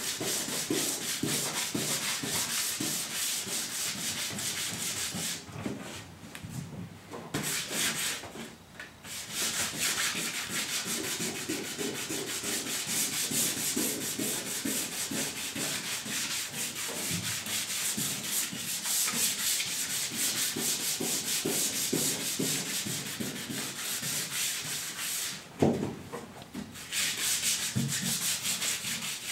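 Sandpaper scraping back and forth by hand over a pickup truck bed floor in rapid, continuous rasping strokes, stopping briefly a few times.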